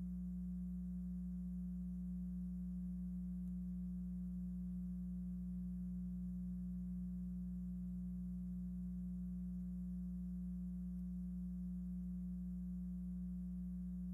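Steady low electrical hum: a single unchanging tone with faint overtones and no game sounds.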